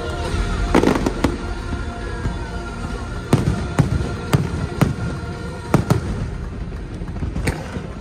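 Aerial fireworks bursting in a string of sharp bangs over a low rumble, with the show's music playing along.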